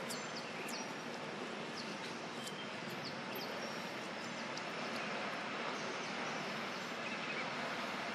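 Steady outdoor ambient hiss, with scattered short high bird chirps, mostly in the first half.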